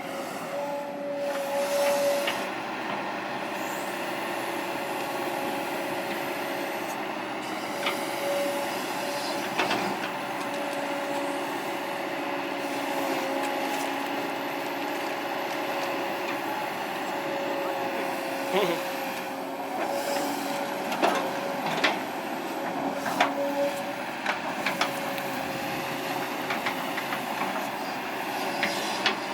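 Kobelco SK200-8 excavator working, a steady whine over the running machine, with metallic squeals and clanks that come thicker in the second half.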